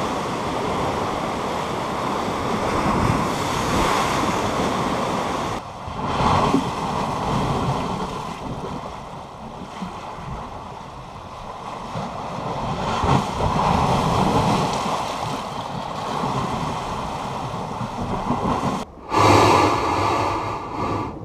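Lake Superior waves surging and washing against ice-covered shore rocks, swelling and easing every few seconds, with wind buffeting the microphone. Near the end comes the loudest surge, water and air rushing through a crack in the shore ice.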